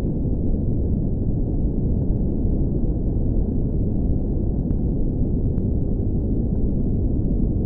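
A steady, loud low rumble of dense noise with no pitch or rhythm, with a couple of faint clicks about five seconds in.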